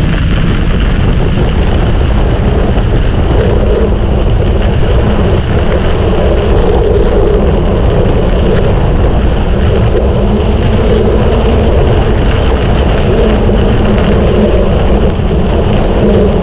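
Steady rush of wind on the microphone mixed with the rolling noise of a mountain bike's studded tyres on the trail while riding.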